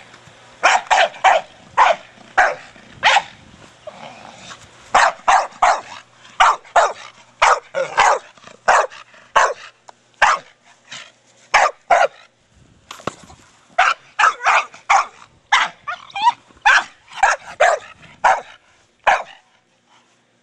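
Staffordshire Bull Terrier barking over and over in short runs of quick barks while playing with his ball.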